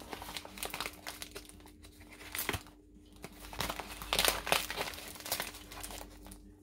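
Crinkling and rustling of a Pepperidge Farm Milano paper cookie bag as its folded top is handled and pulled open. The crackling comes in irregular spurts and is loudest about four seconds in.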